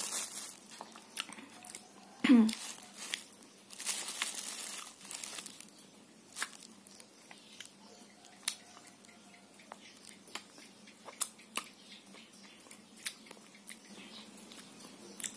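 Handling sounds of eating: a plastic bag crinkling, a soft filled cake being torn apart, and scattered small clicks and mouth sounds of chewing. A short voiced sound about two seconds in and a longer rustle of the plastic about four seconds in.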